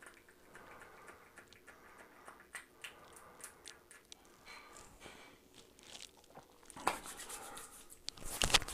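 Faint small ticks and taps as aftershave balm is shaken from a small bottle into the palm, then a louder rough rubbing rush near the end as the hands are rubbed together with the balm.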